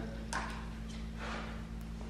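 A few light clicks and a short scrape of hand and tool contact on an engine's timing cover as it is worked loose, over a steady low hum.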